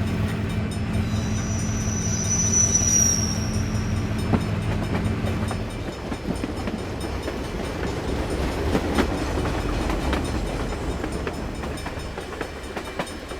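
Train running with a steady low hum. A high thin tone sounds for a few seconds about a second in, then gives way to a rumble with scattered clicks that slowly fades.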